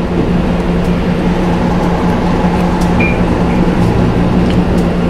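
Steady low mechanical hum with a constant low tone, and a few faint clicks over it.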